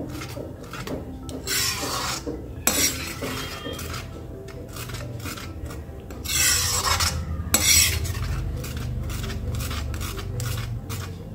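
A spoon stirring and scraping thick gravy around the inside of a kadhai as cream is mixed in. There are two louder stretches of scraping, a couple of seconds in and again past the middle, with lighter scrapes between.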